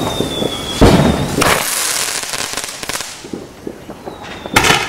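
Consumer fireworks going off: a loud bang about a second in, followed by about two seconds of crackling hiss, then another sharp bang near the end.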